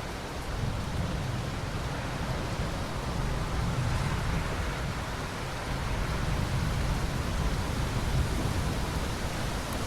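Steady rain falling, an even hiss with a low rumble underneath and no distinct thunderclap.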